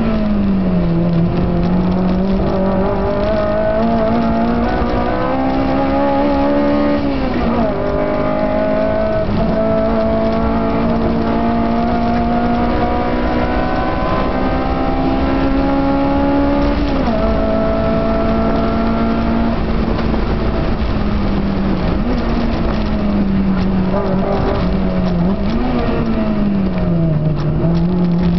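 Car engine heard from inside the cabin at track speed, pulling steadily and upshifting about 7 and 17 seconds in, then easing off and back on for corners in the last part, over steady road and wind noise.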